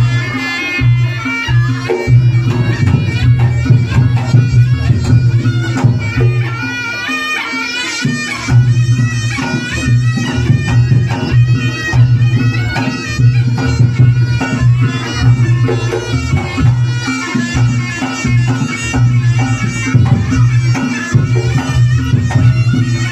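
Reog Ponorogo gamelan music: a slompret shawm playing a wavering, nasal melody over drums, with a low sustained tone underneath that drops out a few times.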